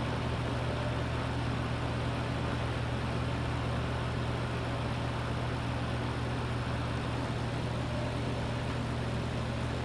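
Lakewood T12 twin box fan, its two 12-inch blades driven by two GE motors, running on low speed: a steady motor hum with an even rush of moving air. The fan does not run right: the left blade turns a lot slower than the right.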